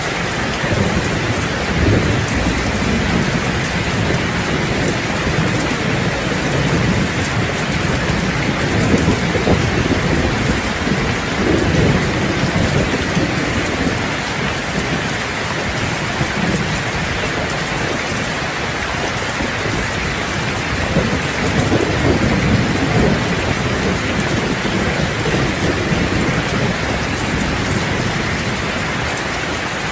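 Heavy rain drumming steadily on a roof, with low rolling thunder that swells twice, about a third of the way in and again about two thirds in.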